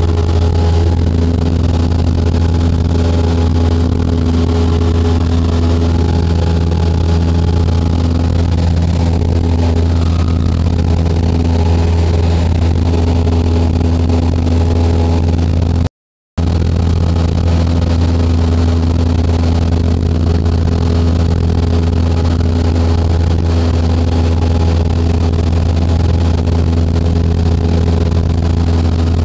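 Light aircraft's engine and propeller droning steadily as heard inside the cabin during the climb after takeoff, a deep even hum with a constant pitch. The sound cuts out completely for a split second about halfway through.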